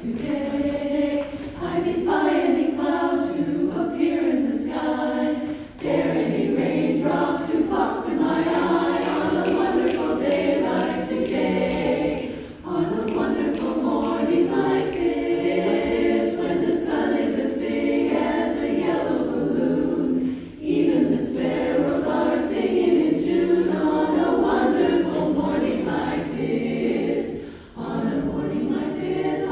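A choir of mostly women's voices singing together, with short breaks between phrases about every seven seconds.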